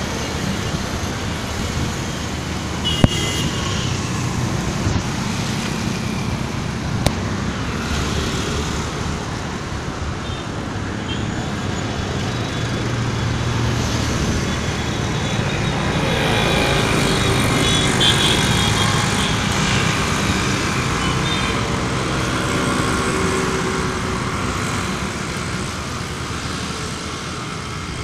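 Road traffic running steadily, with a vehicle engine growing louder and then fading past the halfway point. There is a sharp click about three seconds in and another a few seconds later.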